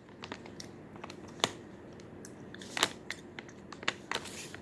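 Plastic packaging rustling and crinkling as a slime container is worked open by hand, with a few sharp clicks, the loudest about a second and a half in, near three seconds and near the end.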